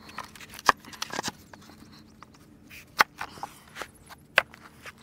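Wooden boards knocking and scraping on a concrete slab as they are shifted into place around a plexiglass panel. There are a few sharp, scattered knocks, the loudest about three seconds in.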